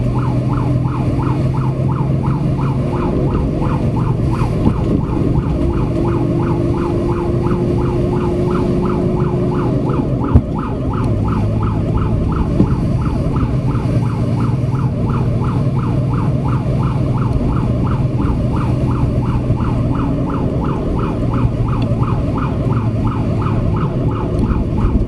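Fire truck siren on a fast yelp, rising and falling several times a second without a break, heard from inside the cab over the truck's engine running under way.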